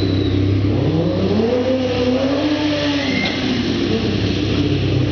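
Kawasaki sport bike engine revving: its pitch climbs for about a second and a half, then falls away. A steady low hum runs underneath.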